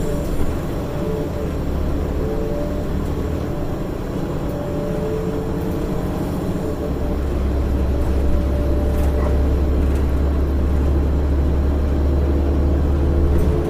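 Interior ride noise of a 2006 Orion VII low-floor transit bus under way: its Cummins ISL diesel engine drones low and steady, the drone growing stronger about halfway through, with a faint whine above it.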